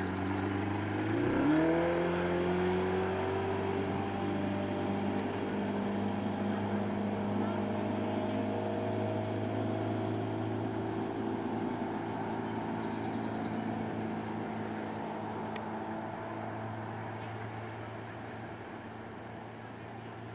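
Motorboat engine running under way. Its pitch rises sharply about a second in as the throttle opens, then holds steady and fades gradually near the end.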